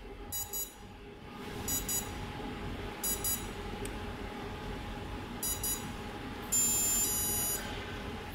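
Brushless ESC beeping during throttle calibration: four short double beeps spaced a second or more apart, then one longer tone lasting about a second near the end. These are the controller's confirmation beeps for the maximum and neutral throttle positions. A faint steady hum runs underneath.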